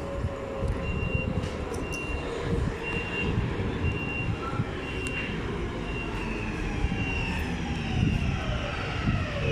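Helsinki metro train rumbling, with a high beep repeating about once a second and, near the end, a motor whine falling in pitch.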